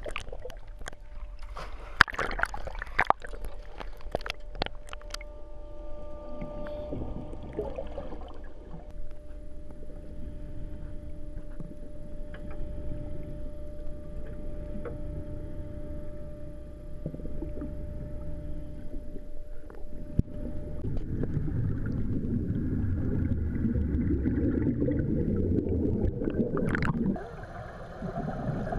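Water splashing and sloshing against a camera at the sea surface for the first few seconds, then muffled underwater sound with a steady hum. From about two-thirds of the way in, a louder rush of air bubbles rises around the helmeted divers, then cuts off abruptly near the end.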